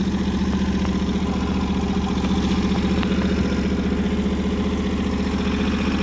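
Timbery M280 sawmill's engine idling steadily, a low, even hum.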